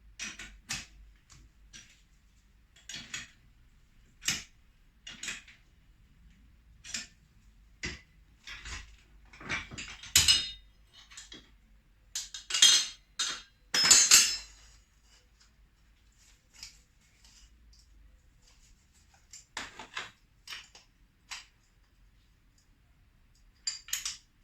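Metal parts and tools clinking and clanking while a motorcycle rear shock is being taken apart: irregular knocks, with a louder run of clatter about ten seconds in and again a few seconds later.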